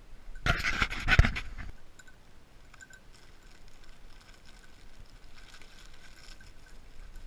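A loud burst of rustling and knocking close to the microphone about half a second in, lasting about a second, then a dog panting softly.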